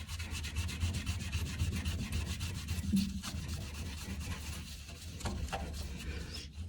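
Damp paper towel dipped in wood ash scrubbed hard against the soot-caked corner of a wood-burning stove insert's glass door: a quick, steady back-and-forth rubbing.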